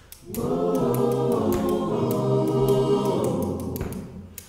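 A choir singing sustained chords, swelling in just after the start and fading out near the end.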